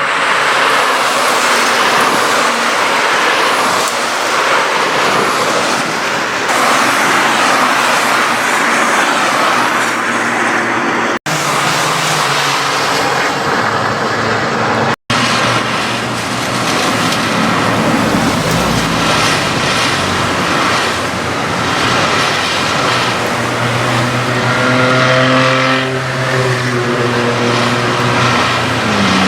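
Citroën C1 race cars' small three-cylinder engines running on a soaked track, under a dense hiss of tyre spray and rain. The sound drops out briefly twice, about eleven and fifteen seconds in, and in the last few seconds the engine note stands out more clearly and climbs.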